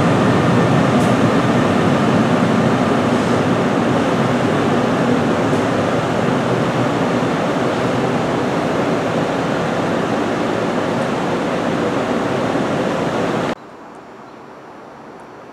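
NJ Transit electric push-pull train, its ALP-46 locomotive at the rear, running away along the track, a steady rumble that slowly fades as it recedes. It cuts off suddenly near the end, leaving only a faint background hum.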